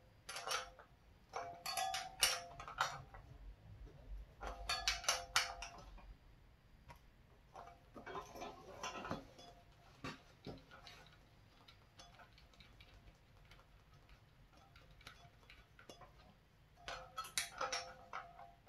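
Several short runs of quick metallic clicking from a hand wrench tightening the rim lock and valve nuts on a spoked dirt bike wheel, with the metal ringing slightly.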